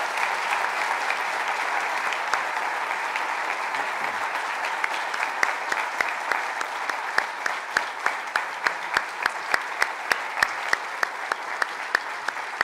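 Audience applauding steadily. From about halfway in, the claps of one person close to the microphone stand out, about three a second.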